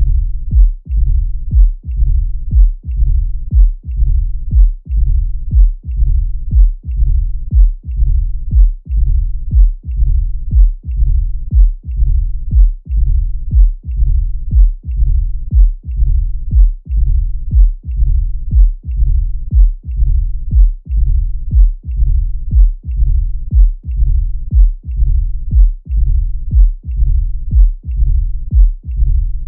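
Heart auscultation recording of mitral stenosis: regular low heartbeats about once a second, with a low rumble filling the gaps between beats, the classic diastolic rumble of blood forced through a narrowed mitral valve.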